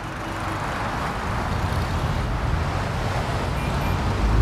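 Road traffic: cars and motor scooters going by, a steady rush of engines and tyres that swells up at the start.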